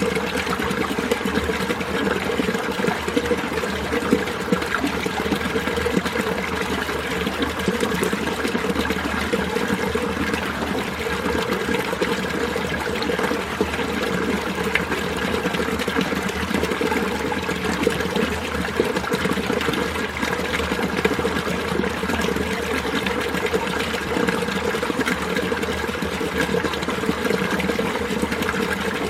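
Winter mountain stream running steadily over rocks, a continuous even rush of water with no pauses.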